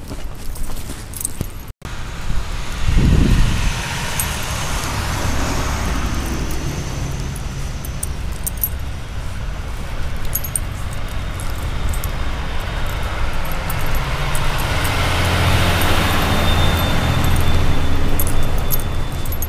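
Steady rumble of a motor vehicle running nearby, swelling louder about three-quarters of the way through, with a brief low thump early and faint high clicks and jingles from the dog's leash hardware.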